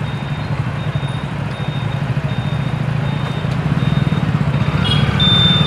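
Traffic on a busy city road: car, bus and scooter engines and tyres passing in a steady rumble, growing slightly louder. A vehicle horn sounds with a high, steady note about five seconds in.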